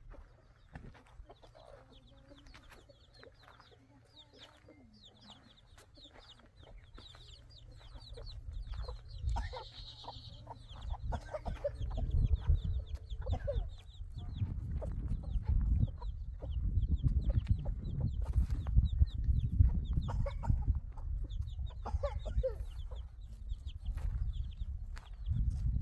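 Chickens clucking, with a rooster among them, over many quick, faint, high chirps. A low rumbling noise swells in about a third of the way through and becomes the loudest sound.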